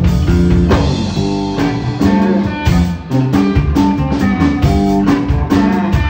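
Live band music led by a hollow-body archtop electric guitar played through an amplifier, with drums keeping a steady beat.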